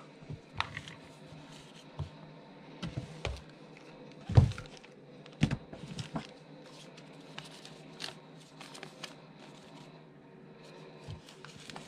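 Hands handling things on a table: scattered light knocks, taps and rustles from a cardboard box, cables and paper, with a louder thump about four seconds in and another shortly after. A faint steady low hum runs underneath.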